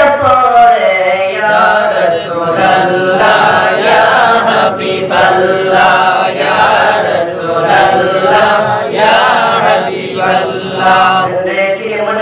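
A group of male voices chants a naat, a devotional song in praise of the Prophet. The singing is continuous and melismatic, with held notes that glide in pitch, sung into microphones without instruments.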